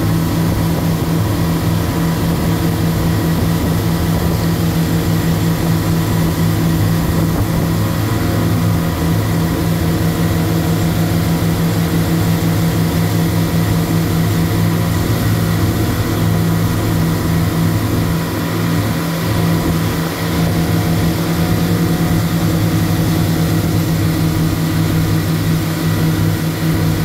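A boat's engine running steadily under way: an even, loud drone with a constant hiss over it.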